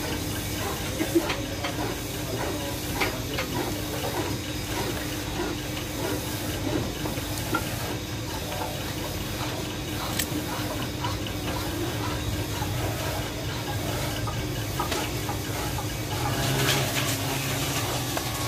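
A steady hum and hiss, with scattered sharp clicks and knocks of thin cane and wooden strips being handled and set against each other, and a louder clatter near the end.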